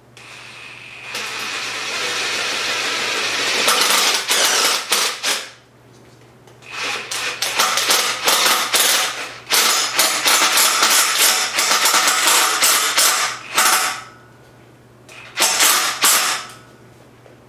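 Homemade JustAL-style power hammer running, its ram striking in rapid repeated blows: a first run building up over the first few seconds, a long run from about six and a half to fourteen seconds, and a short burst near the end.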